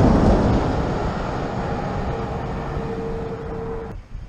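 A road train, a prime mover hauling two tipper trailers, passing close and pulling away: heavy engine and tyre noise that slowly fades, with a steady hum in its last couple of seconds, then cuts off sharply just before the end.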